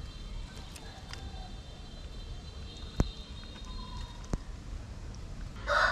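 Low steady background noise broken by two sharp taps, about three seconds in and again a little over a second later. Right at the end a rooster starts crowing.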